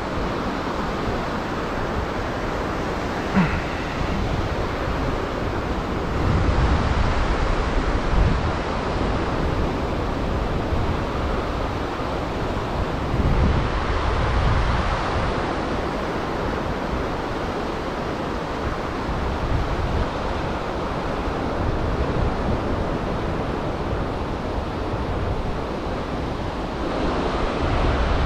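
Surf breaking and washing up the beach, a steady rushing that swells every few seconds, with wind gusting on the microphone.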